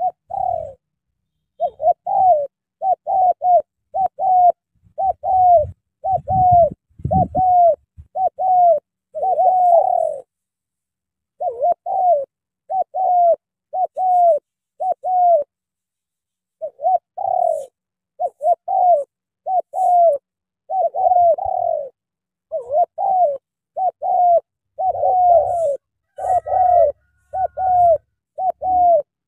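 Spotted dove cooing: a long series of short, falling coo notes, one or two a second, with two brief pauses about ten and fifteen seconds in.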